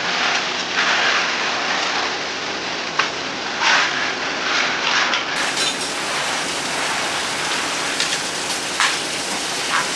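Heavy rain falling steadily, with a few sharp drip or tap sounds on top.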